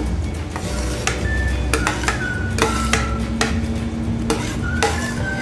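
Metal spoon scraping and tapping against a plate, pushing diced bell pepper into a cooking pot: a series of sharp clinks and scrapes about every half second to a second. Background music with held tones runs underneath.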